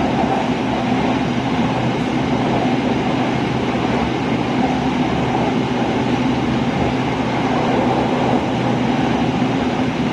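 Steady running noise of a Red Line electric commuter train in motion, an even rumble and hum with no distinct clacks or squeals.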